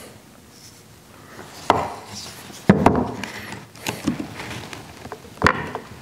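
Snips and a screwdriver prying and scraping at the crimped metal housing of a Schwintek RV slide-room motor, with sharp metal clicks and knocks on a plywood board. The clicks come in about three main hits, the loudest a little under halfway through.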